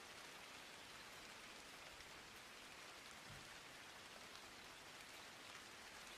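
Faint, steady hiss of noise with no speech or music.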